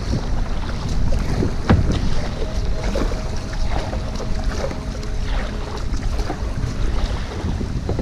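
Wind rumbling on a GoPro microphone on a kayak, over the splashes of paddle strokes in the water. One sharp knock stands out nearly two seconds in.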